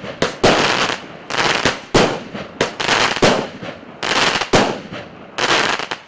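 A 36-shot, 0.8-inch consumer firework battery (cake) firing shot after shot. Each shot is a sharp bang with a short fading tail, coming roughly every 0.6 to 0.8 s, and the last one fades out at the very end.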